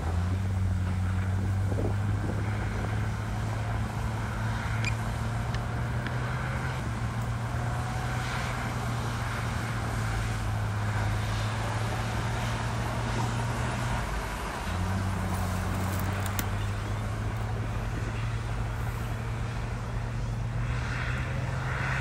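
Heavy diesel engines of earthmoving machines running under load with a steady low drone that shifts in pitch a couple of times.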